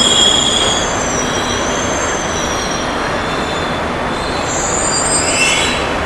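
Mumbai Metro Line 7 train squealing with high, wavering tones over a steady rumble as it slows to a stop at the platform, with a brief brighter squeal about five seconds in.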